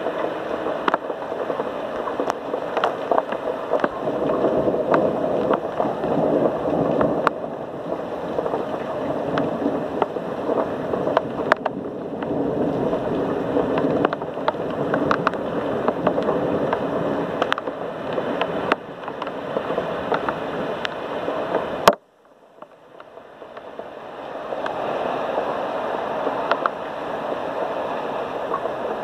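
Heavy rain pouring steadily, with the patter of individual drops ticking through it. About three quarters of the way through, a sharp crack cuts the sound out almost completely; it then swells back over a few seconds.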